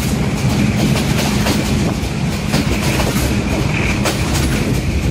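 Passenger train carriages clattering over the rails, heard from the carriage doorway, with the steady low drone of a Class M6 diesel locomotive hauling the train up a steep incline.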